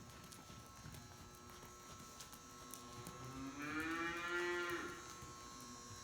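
A cow mooing once, a single drawn-out call of about a second and a half that rises slightly in pitch and then holds, starting a little past the middle.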